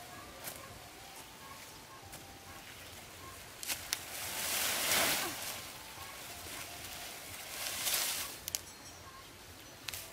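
Dry corn stalks and leaves rustling, in two swells of about a second each, with a few sharp crackles.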